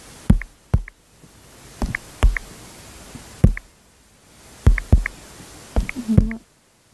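Fingertip taps on a touchscreen while typing on the on-screen keyboard: about nine sharp taps at an uneven pace, several followed by a brief high tick.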